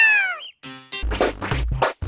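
Remixed cartoon audio: a high-pitched cry falling in pitch cuts off about half a second in, followed from about a second in by a heavy, bass-laden electronic beat.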